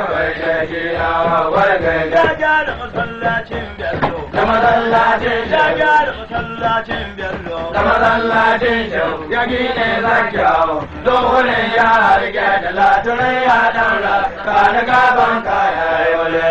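Chanted vocal music: a voice singing a wavering, ornamented melody with little pause, over a musical backing.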